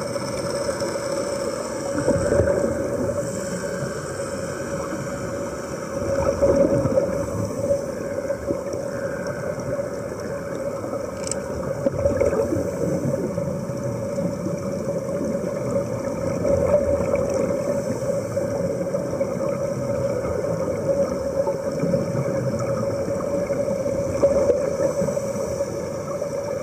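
Underwater sound around helmet divers: a steady hum and hiss, with surges of bubbling every few seconds as air vents from the diving helmets.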